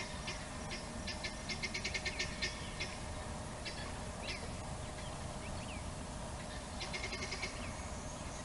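Birds calling: quick runs of high chattering notes in a burst over the first few seconds and again near the end, with a few single chirps between, over a steady low background noise and a faint hum.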